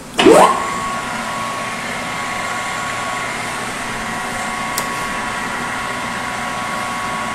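ENCO 14x40 engine lathe, 3 hp three-phase, starting up at a higher spindle speed: a loud burst with a whine that rises quickly in pitch, then the headstock running steadily with an even gear whine. One light click about five seconds in.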